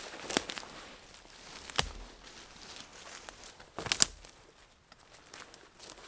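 Footsteps on the forest floor, with three sharp cracks of sticks snapping underfoot.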